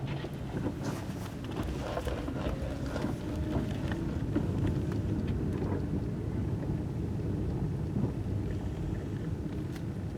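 Car cabin noise while driving slowly: a steady low rumble of engine and tyres, with a few faint clicks.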